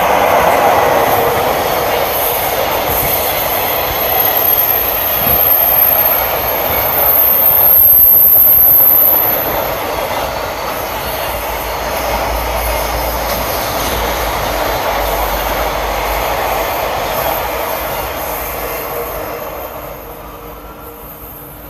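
Freight train rolling past, a steady rush of wagons with a thin high squeal through the first half, fading away near the end.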